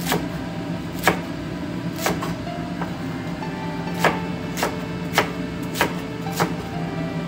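Large knife chopping through cabbage onto a wooden cutting board: eight sharp knocks, about a second apart at first, then quicker, about one every half second, from around four seconds in.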